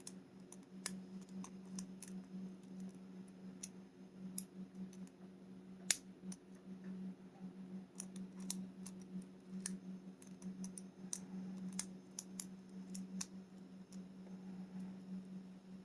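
Lock pick and tension wrench working the pins of a pin-tumbler rim cylinder lock: faint, irregular small metallic clicks and ticks, a few sharper ones, over a steady low hum.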